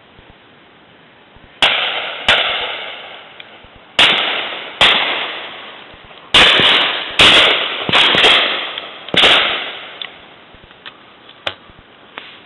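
Shotguns firing at driven game birds: about nine shots between two and nine seconds in, several coming in quick pairs, each followed by an echo that dies away over about a second. A couple of fainter, more distant shots come near the end.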